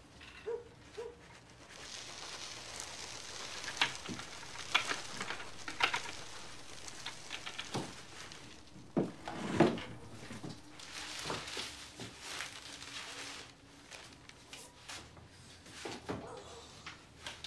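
Hissing and rustling of quicklime and plastic sheeting being spread, with scattered knocks and a heavier thump about halfway through.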